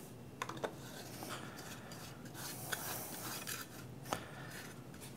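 A 3D-printed nylon grinder housing and a cordless rotary tool being handled, the housing taken off and screwed back on: plastic rubbing and scraping with a few sharp clicks.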